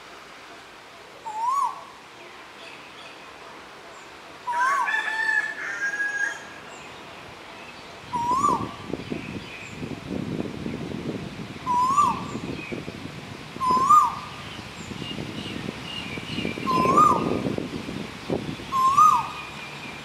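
Male Asian koel calling, about seven times, a short rising 'ko-el' note repeated every two to three seconds. A low rumble comes in about eight seconds in.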